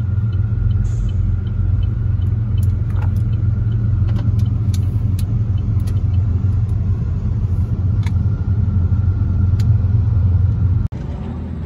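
Steady low rumble of a moving car heard from inside its cabin, with road and engine noise, which cuts off abruptly near the end.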